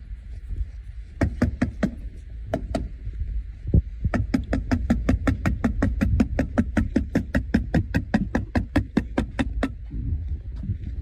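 Nails being driven into asphalt roof shingles: a few separate strikes, then from about four seconds in a fast, even run of about five strikes a second that stops near the end.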